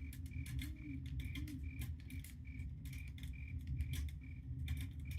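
Night nature ambience: a steady chirping about twice a second, irregular crackling clicks, and a low rumble underneath. A couple of short, low hoots come about a second in.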